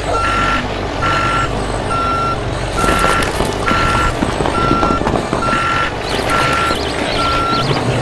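Vehicle reversing alarm beeping evenly, a single steady tone about once a second, over a low running rumble.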